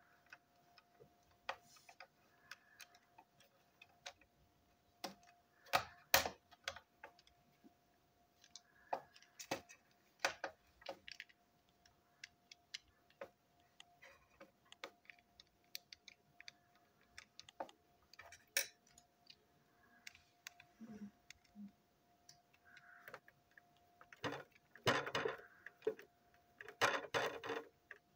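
Small plastic parts of a toy train engine clicking and tapping irregularly as they are handled and fitted back together, with a quick flurry of clicks near the end. A faint steady tone hums underneath.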